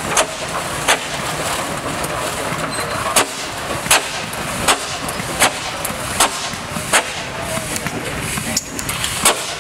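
Steam traction engine working, its exhaust giving sharp chuffs about every three quarters of a second, with two pauses, over a steady hiss.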